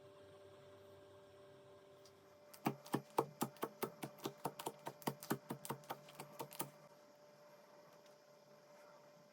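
Slime clicking as it is pressed and worked by hand: a fast run of sharp clicks, about six a second, for about four seconds, starting nearly three seconds in and stopping abruptly.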